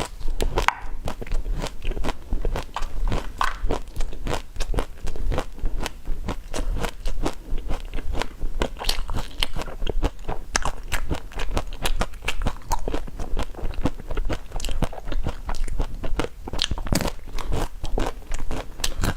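Someone biting and chewing crunchy food, a fast, irregular run of crisp crunches with no pause.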